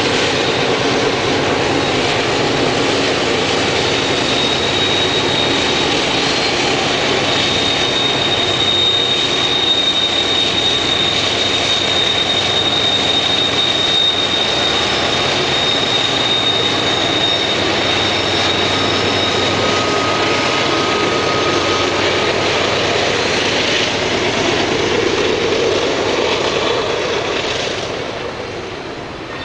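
Five GE diesel locomotives (two GEVO and three Dash 9 units) lugging a heavy double-stack container train uphill, running loud and steady as they pass close by. A thin, steady high whine runs through the middle. The sound drops off near the end as the locomotives move on and the container cars follow.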